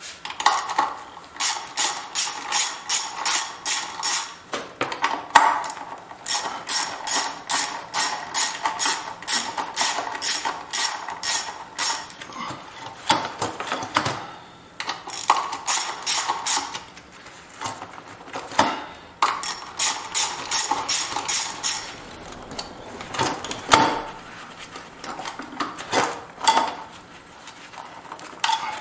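Ratchet wrench with a 10 mm socket clicking in quick runs of even clicks, with short pauses between runs, as bolts holding a plastic engine cover are backed out.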